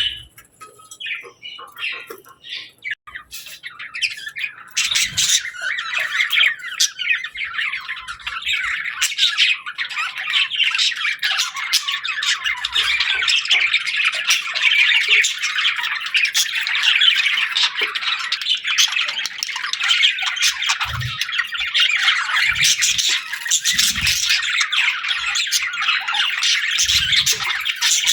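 Several budgerigars chattering and squawking, with sparse chirps at first that build after a few seconds into dense, continuous high-pitched chatter. A few short, dull low thumps sound now and then in the second half.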